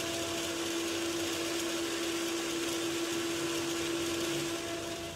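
Electric mixer-grinder running steadily, its motor grinding roasted whole spices (cumin, coriander seed, dried red chillies, black pepper) to a fine powder in the dry grinding jar. Its hum stops near the end and the sound begins to wind down.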